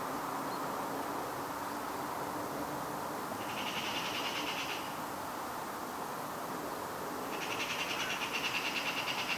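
High, rapid chirring from a small animal in two bouts, one about a second and a half long a few seconds in and a longer one starting near the end, over a steady faint rumble of a Boeing 777-300ER jet airliner cruising at high altitude.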